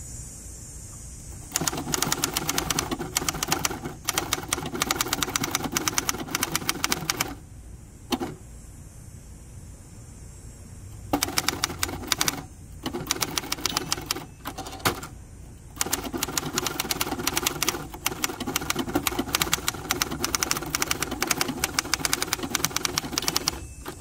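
1964 Hermes Ambassador manual typewriter being typed on: fast runs of keystrokes, the typebars striking the platen, broken by short pauses, with the longest pause of about four seconds after the first run.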